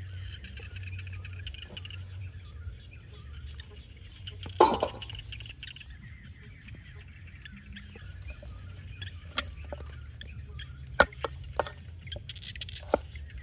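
Rural outdoor ambience with faint birdsong, with one brief loud sound about four and a half seconds in. From about nine seconds on, a cleaver knocks several times on a wooden chopping block as ingredients are cut.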